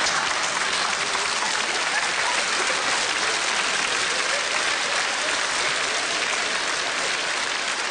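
Studio audience applauding steadily, with laughter mixed in.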